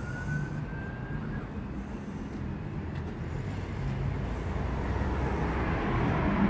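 Road traffic: a motor vehicle running past, its steady low rumble growing louder toward the end, with a faint thin rising tone in the first second.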